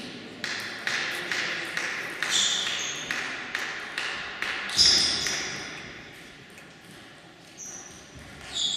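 Table tennis ball tapped and bouncing about twice a second in a reverberant hall, between points. A few short, high sneaker squeaks on the wooden gym floor come through, the loudest about five seconds in.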